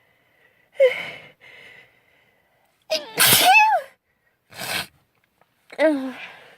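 A girl's sneeze, the loudest sound, about three seconds in. Short voiced gasping breaths build up to it, and a sharp breath and another gasp follow near the end.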